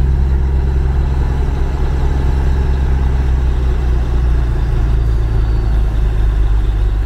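Locomotive engine idling steadily, a low even hum.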